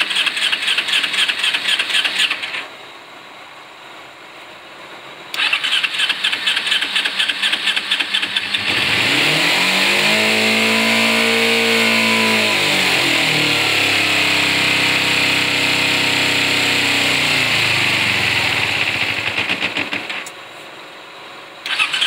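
2007 Kawasaki Ninja 250's parallel-twin engine being cranked on the starter twice, then catching about nine seconds in. It rises in pitch, drops back, runs for about ten seconds and dies, and cranking starts again near the end: the rough, unstable idle of a bike that has been sitting.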